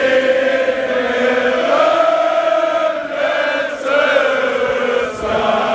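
Large crowd of football fans singing a chant together, many voices holding long, slowly gliding notes.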